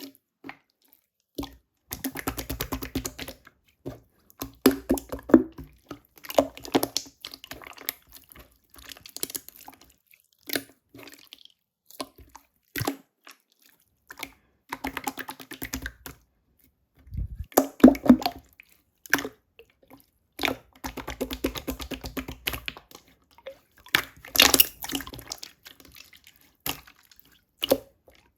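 Clear slime being squished and pressed by hand, making wet crackling pops in repeated bursts with short pauses between them.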